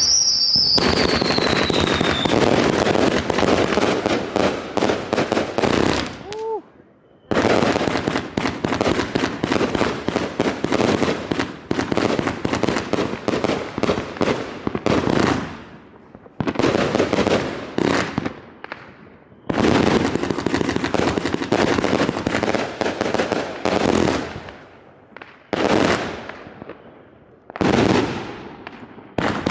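A 153-shot consumer firework cake firing, dense rapid volleys of shots and crackle in long runs broken by several brief pauses. A falling whistle sounds in the first two seconds.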